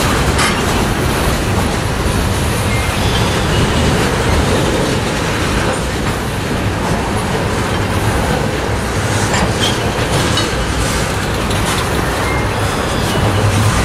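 Canadian Pacific freight train's cars rolling past close by: a steady, loud rumble of steel wheels on rail, with scattered clacks over the joints.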